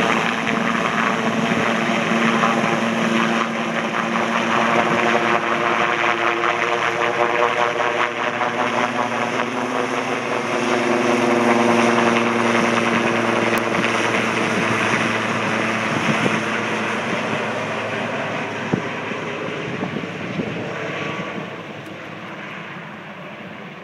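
Sikorsky S-76 helicopter passing low overhead, its rotor beat and engine growing louder to a peak about halfway through as it passes over, the pitch falling, then fading as it flies away.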